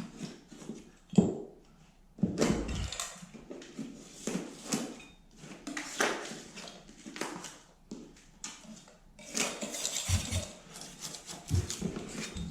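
Utility blade and putty knife cutting and scraping loose paper facing off drywall. Irregular rasping strokes and tearing, with a sharp knock about a second in.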